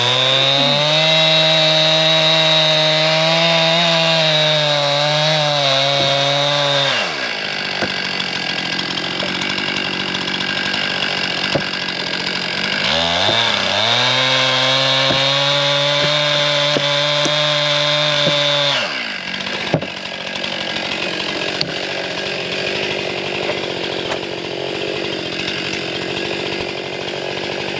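Two-stroke chainsaw run at full throttle twice, about seven seconds and then about six seconds, its pitch wavering under load as it cuts wood, dropping back to idle between the cuts and after the second.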